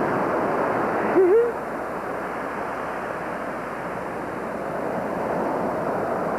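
Ocean surf washing steadily onto the beach. About a second in there is a brief wavering vocal note.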